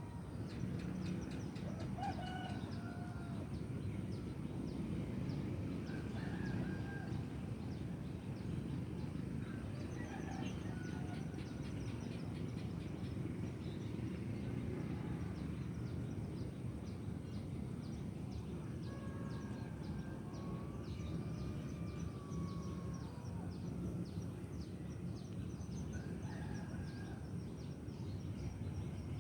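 Distant chickens and a rooster crowing now and then, faint over a steady low background rumble.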